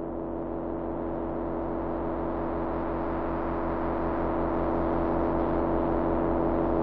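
A low, steady droning soundtrack of dark ambient film score, swelling slowly louder, with a faint regular pulse underneath.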